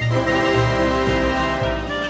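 Instrumental backing music: a cheerful children's tune with held notes and a steady bass.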